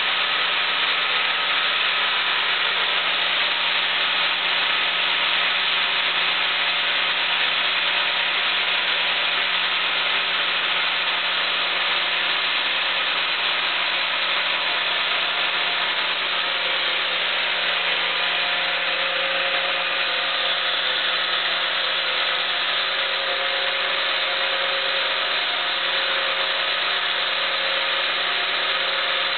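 Sawmill band saw cutting lengthwise through a large keyaki (zelkova) log: a loud, steady sawing noise with a constant low hum from the machinery underneath.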